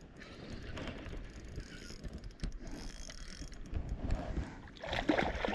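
Fishing reel being cranked, a fine ticking ratchet sound, as a hooked bass is reeled in to the kayak. A louder noisy burst comes near the end.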